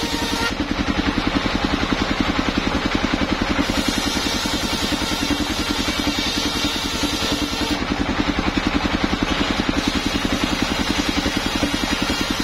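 Homemade engine-driven circular sawmill running steadily, the engine's even fast pulsing under the hiss of a large circular saw blade ripping along wooden boards. The cutting noise shifts a little as the boards are fed through.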